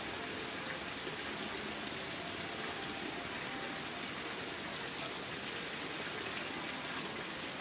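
Water splashing steadily onto the surface of a koi pond, a continuous even rush.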